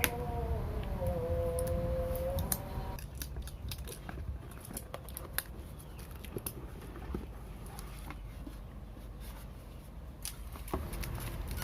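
Small sharp clicks, snips and scratching as a tight tamper seal on a cardboard product box is cut and picked open. For about the first three seconds a steady humming tone runs underneath, then stops.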